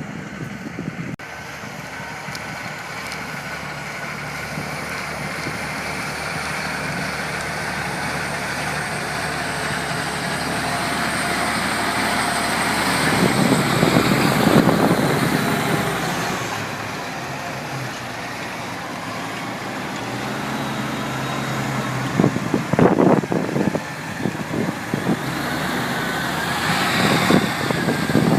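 Massey Ferguson tractor's diesel engine running steadily under load while ploughing, growing louder to a peak about halfway through and then fading, as if the tractor passes close by. Gusts of wind buffet the microphone in the middle and near the end.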